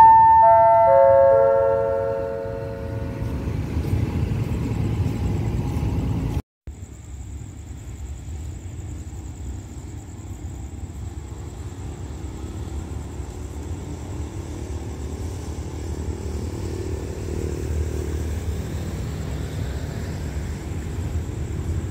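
A four-note descending chime over the station's public-address speakers, closing the announcement, above the low rumble of a diesel train standing at the platform. After a sudden break, a steady low rumble of an approaching train grows slightly louder, with a faint high steady whine above it.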